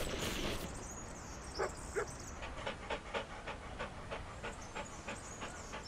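Dog panting sound effect: quick, even breaths about four a second, starting about two and a half seconds in. Before it come two short dog sounds about a second and a half in, and at the very start a rushing noise that fades out within the first half second.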